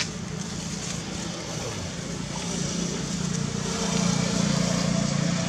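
Steady low engine hum from a motor vehicle running nearby, growing louder about halfway through, over a background hiss.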